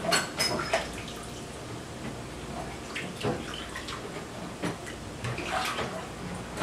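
Water splashing and sloshing in a filled kitchen sink as vegetables are washed by hand, with irregular small splashes and knocks.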